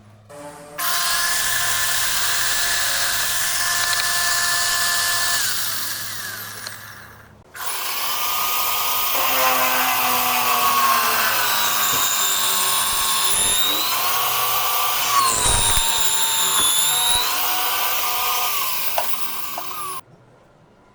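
An electric power tool running in two long bursts. The first holds a steady whine for about five seconds, then winds down. The second runs about twelve seconds with its pitch dipping and recovering, then cuts off suddenly.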